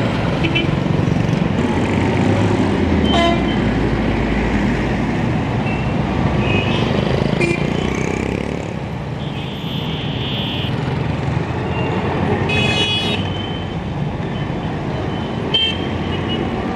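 Busy street traffic: bus, motorcycle and car engines running, with several short horn toots and one horn held for about a second near the middle.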